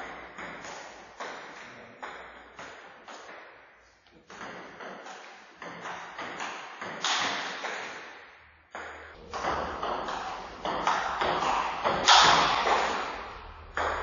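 Table tennis rally: the ball clicking off paddles and bouncing on the table about twice a second, each hit echoing in the hall, with louder hits in the second half.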